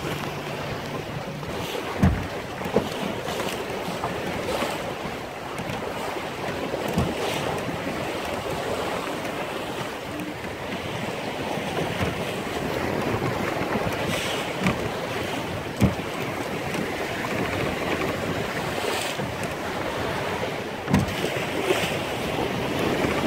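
Wind and rough chop rushing past a small sailboat, with wind buffeting the microphone. Every few seconds a heavy clunk, the loudest about 2 s in, near 16 s and near 21 s: the O'Day Mariner's centerboard banging against its trunk as waves hit the board.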